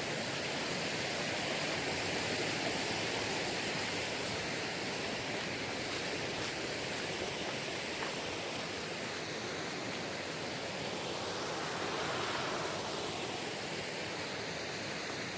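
Steady rushing of a mountain valley stream, a continuous even wash of water noise.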